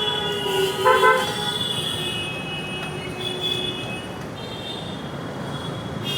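Horns sounding with steady pitched tones, loudest about a second in, over steady background noise.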